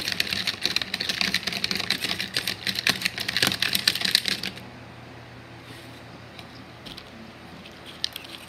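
Small plastic toy figures clacking and rattling together rapidly in a mock fight for about four and a half seconds, then only a few scattered clicks.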